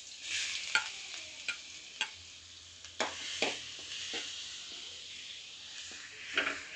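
Ginger, garlic and green chilli paste sizzling as it hits hot coconut oil in a metal kadai, with a steel spoon clicking and scraping against the pan as it is stirred. The clicks are most frequent in the first three and a half seconds.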